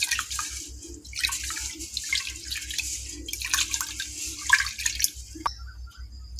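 A hand swishing and rubbing soaked rice in water in a steel pot, with irregular splashing and sloshing, as the rice is rinsed. The splashing stops about five seconds in, followed by a single sharp click.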